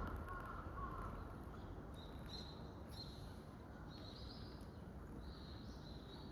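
Common kingfisher giving a series of short, high, thin whistled calls, starting about two seconds in and repeating every half second to a second, over a steady low background rumble.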